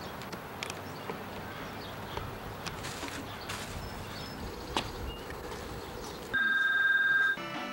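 Outdoor ambience on old camcorder audio, a steady hiss with scattered light clicks. Near the end a loud steady electronic beep holds for about a second and cuts off, just before music begins.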